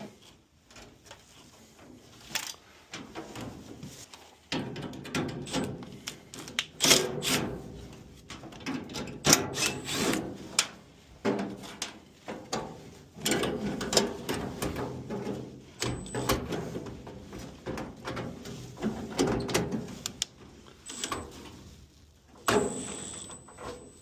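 Hand work on metal and parts: irregular knocks, clicks and scraping, rubbing handling noise, with a sharp knock about two-thirds of a second before the end.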